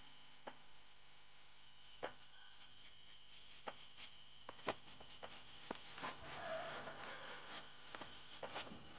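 Rubber-tapping knife shaving a thin strip of bark from a rubber tree: faint scraping with scattered sharp ticks, and a longer scratchy scrape about six seconds in.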